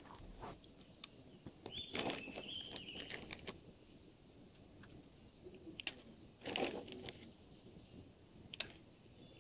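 Faint handling noises of paintball gear between shot strings: a few sharp clicks scattered a second or more apart, the loudest about two-thirds of the way through, amid light rustling, with a brief high whistle-like tone about two seconds in.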